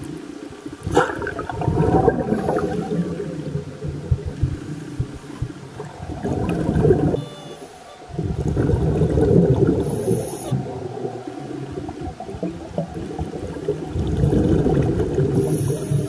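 Scuba divers' exhaled bubbles rumbling and gurgling, heard underwater through the camera, rising and falling in long surges with each breath.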